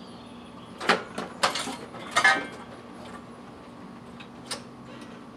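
Metal clunks and rattles as a riding mower is rolled backward off the steel wheel cradles of a Cub Cadet 500 lb mower lift: a few sharp knocks between about one and two and a half seconds in, then a single lighter click near the end.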